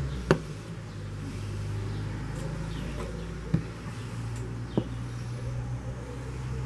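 A few sharp plastic clicks, three in all, as the parts of an electric salt grinder's battery compartment are handled and fitted. Under them runs a steady low hum.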